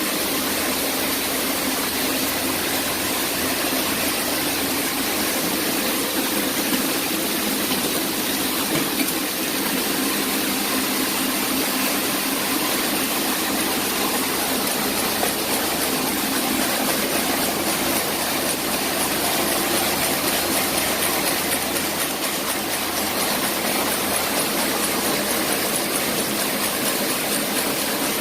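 Sock knitting machine running steadily, a continuous mechanical whir with no pauses.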